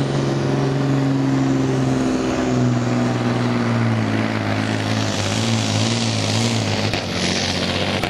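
DAF truck's diesel engine working at full load as it drags a truck-pulling sled. It is a steady heavy drone whose pitch sags a little about two and a half seconds in as the load builds, and a rushing noise grows over it from about halfway.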